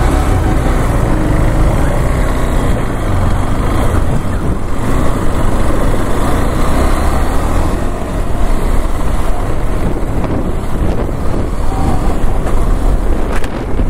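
KTM Adventure motorcycle engine running as the bike rides off and gets up to speed on a highway, with heavy wind rumble on the microphone.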